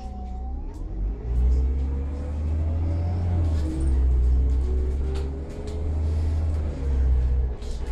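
Irisbus Citelis city bus with a natural-gas (CNG) engine, heard from inside the passenger cabin as it drives off: a low engine rumble builds about a second in, then surges and dips several times as the bus gathers speed, with light rattles and clicks from the cabin.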